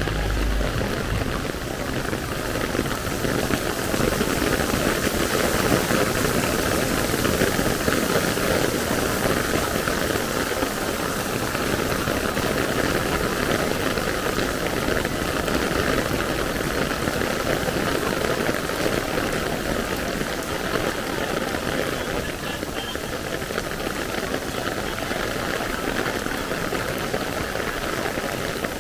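Heavy rain falling on a paved street: a steady, dense hiss of rain on wet ground. A brief low rumble fades out in the first second.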